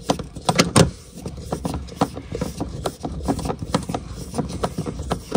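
Irregular clicks, taps and knocks of a hand tool and plastic interior trim being worked loose in a pickup cab, over a low rumble.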